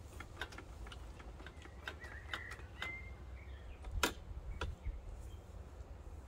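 Honda IZY petrol lawnmower running in long grass, heard faintly as a low, steady engine drone. Scattered sharp clicks and a few short high chirps sit over it.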